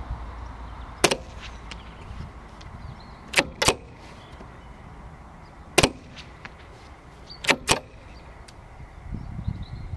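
Two shots from a CZ 512 semi-automatic rifle in .22 WMR firing subsonic ammunition, about a second in and near the middle. A couple of seconds after each shot come two quick clacks as the bolt is pulled back and let forward by hand: the subsonic rounds are too weak to cycle the recoil-operated action themselves.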